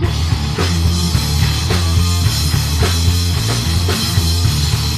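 Live rock band playing: electric guitars, bass guitar and drum kit in a steady, driving beat.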